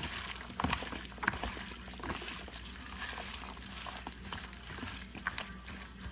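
Chopped raw chicken and vegetables being stirred together with seasoning in a bowl: irregular wet rustling with scattered small clicks and knocks.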